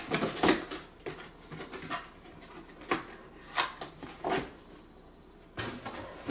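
Camera-kit packaging being handled: a run of irregular rustles, scrapes and light knocks, with a quieter stretch about five seconds in.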